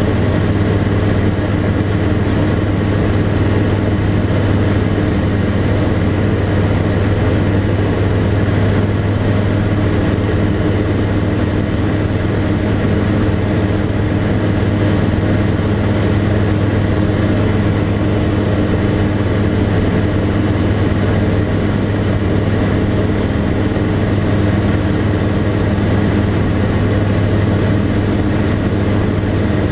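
Tecnam P92 Echo Super's Rotax 912 flat-four engine and propeller running steadily in flight, a deep even drone heard from inside the cockpit.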